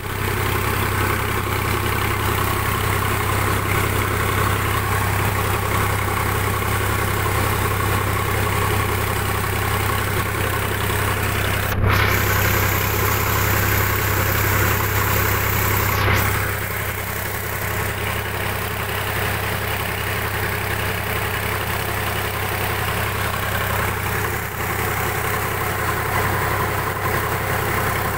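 Tractor diesel engine running steadily with a strong low hum. A high hiss joins in for about four seconds near the middle, then cuts off.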